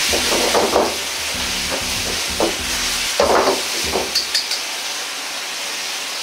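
Ground beef sizzling in a wok over a gas flame, stirred with several scraping strokes of the utensil against the pan during the first four seconds or so as the seasoning mix is worked in. After that only a steady sizzle and hiss is left.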